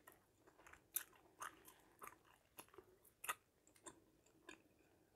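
Chewing gum chewed close to the microphone: a string of short, sharp smacking clicks at an uneven pace, roughly one every half second.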